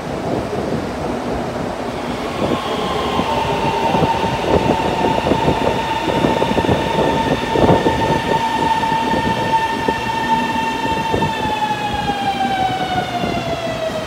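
Shanghai Metro Line 2 02A05 electric train pulling in and braking to a stop. Its traction whine holds one pitch, then falls steadily over the last few seconds as the train slows, over a rumble with the wheels clattering on the rails.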